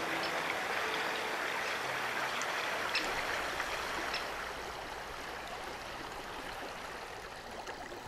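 Steady rush of flowing river water, a hissing wash of current close to the surface that eases off a little after about four seconds.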